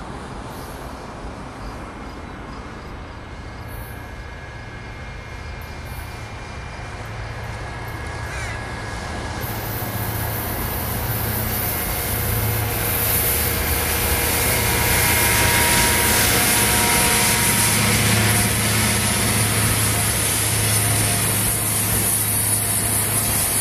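A convoy of self-propelled railway maintenance-of-way machines approaching on the track, their diesel engines running with a low drone and their wheels rolling on the rails. The sound grows steadily louder over the first half and stays loud as the machines pass close by.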